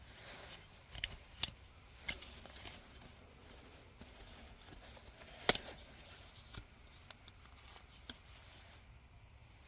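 Faint handling sounds from a pleated cabin air filter being turned over and examined: scattered light clicks and rustles of its frame and pleats, with one sharper click about five and a half seconds in.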